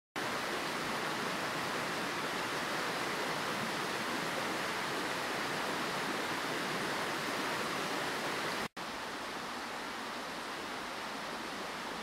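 A small stream rushing steadily. The sound cuts out for an instant about two-thirds of the way through and comes back slightly quieter.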